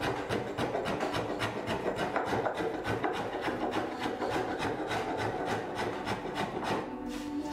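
Quick, repeated shaving strokes of a hand-held blade across a wooden Windsor chair seat as it is carved, a rasping scrape several times a second.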